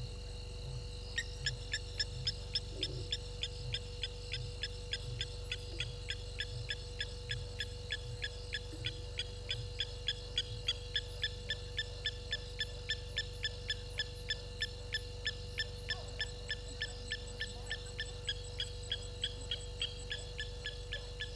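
A night animal calling: a long, even series of short downslurred whistles, about three a second, starting about a second in, over a steady hum.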